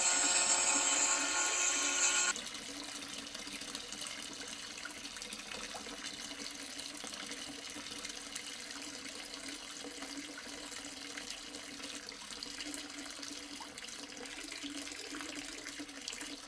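A steady high whine that cuts off suddenly about two seconds in, then a thin stream of water trickling steadily from a toy pump's small pipe into a shallow cement tank.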